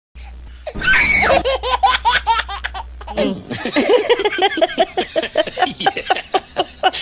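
Hearty laughter: a long run of rapid, pitched laugh pulses that starts about a second in and carries on in quick bursts, about five a second.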